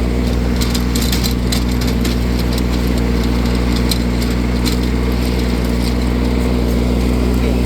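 John Deere diesel riding mower engine running steadily at idle, with scattered light clicks over the steady drone; it sounds healthy after a full overhaul.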